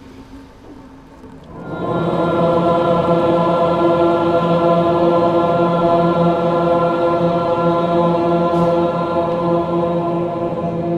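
Background music: a single steady drone comes in loudly about a second and a half in and holds without changing pitch.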